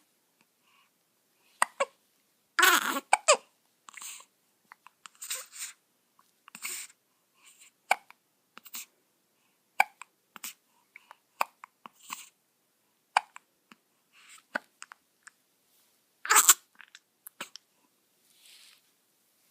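Repeated hiccups: short, sharp catches at uneven gaps of about a second, with louder ones a few seconds in and again near the end.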